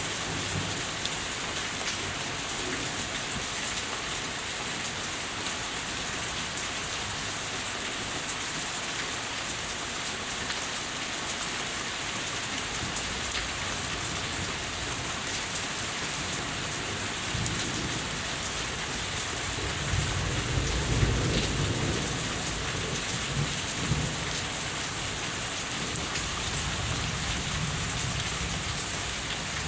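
Steady rain falling on and running off a house. About two-thirds of the way through, a low rumble of thunder swells for several seconds and then fades.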